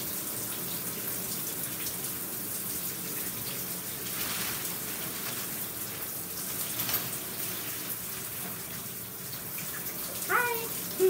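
Shower water running steadily, spraying into the tub behind the curtain. Near the end a brief rising voice sound.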